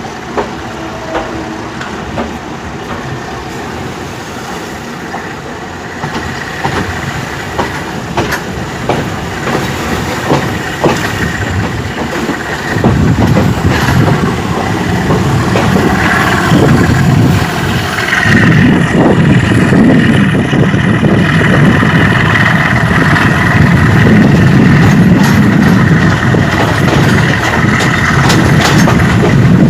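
Train pulling into the station: scattered clanks and wheel clicks on the rails at first, then a heavy rumble that grows much louder about halfway through and stays loud, with a steady high tone above it in the second half.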